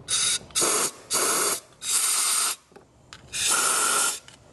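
Aerosol spray can fired in five short bursts of hiss, the later bursts longer than the first.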